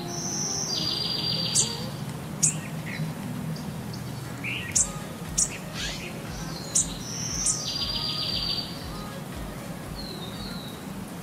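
Birdsong: scattered sharp high chirps and a short trilled call about a second long, heard once early and again about seven seconds in, over a steady low hum.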